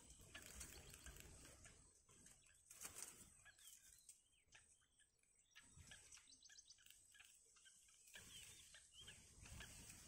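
Faint, scattered high chirps of bittern nestlings begging as a parent comes to the nest to feed them, with a quick run of ticks about halfway through and a few short curved calls near the end, over a low rumble.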